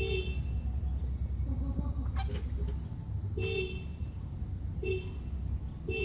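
A car horn tooting in short honks, about four times, over a low steady rumble.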